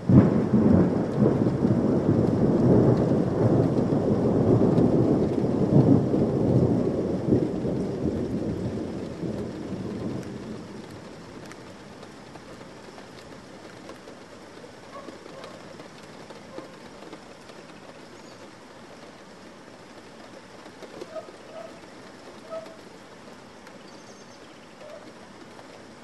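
A thunderclap breaks suddenly and rumbles heavily for several seconds, dying away about ten seconds in, over steady summer rain that carries on after the thunder has faded.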